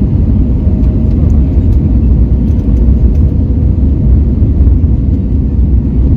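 Steady low rumble of airflow and engines heard inside the cabin of an Airbus A321neo on its landing approach with the flaps extended.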